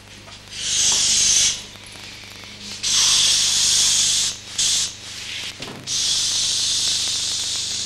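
Air hissing through the neck of a toy balloon in four separate spurts, the last one long and steady.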